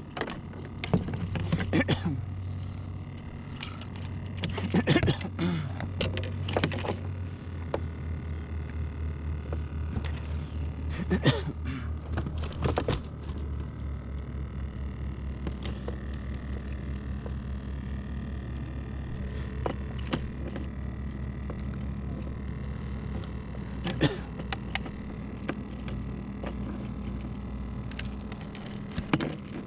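A small motor or mechanism hums steadily with a fast, even pulse. Several sharp knocks and clatters come over it, the loudest about 11 and 24 seconds in.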